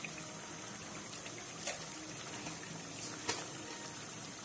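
Spiced carrot gravy simmering in a steel kadai on a gas burner, a steady bubbling hiss with a couple of small pops.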